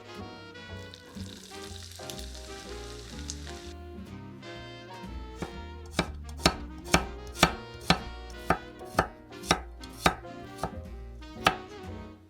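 Knife chopping food on a cutting board, about eleven sharp strokes at roughly two a second through the second half, over background music with a steady bass line.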